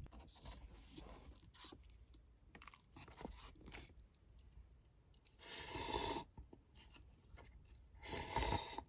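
Someone eating instant cup noodles with chopsticks: soft chewing and small mouth clicks, then two louder noisy bursts of eating sound, a little past halfway and near the end.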